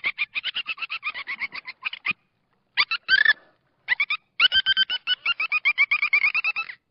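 An animal calling in fast trains of short pitched pulses, about ten a second, in several bouts separated by short gaps, with one longer, falling call about three seconds in.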